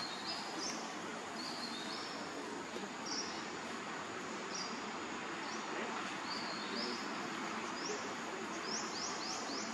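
Outdoor ambience: a steady background hiss with short, high-pitched rising chirps repeated through it, typical of small birds calling, and a quick run of about four chirps near the end.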